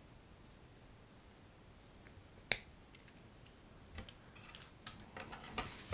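Plastic LEGO pieces being handled: one sharp click about two and a half seconds in, then a quick run of small clicks and light rustling over the last two seconds.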